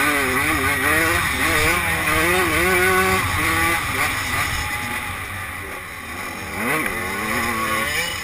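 85cc two-stroke motocross bike engine revving up and down with throttle and gear changes, with wind rushing over a helmet-mounted microphone. The engine pitch wavers for the first few seconds, eases off, then climbs sharply near the end.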